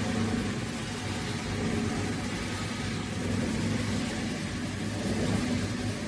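Automatic tyre block cutting machine running: a steady mechanical hum with a low drone, swelling slightly every second or two.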